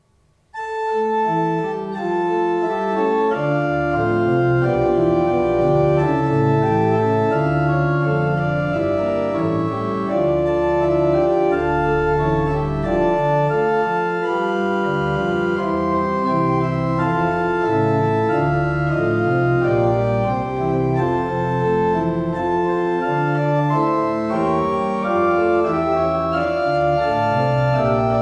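Church pipe organ playing the closing postlude after the blessing: full sustained chords over a bass line, coming in about half a second in.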